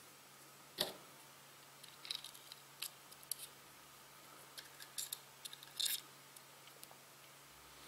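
Faint, scattered small metallic clicks and light scrapes of an automatic knife's metal handle being handled while a threaded steel glass-breaker tip is screwed onto its butt by hand. The sharpest click comes about a second in.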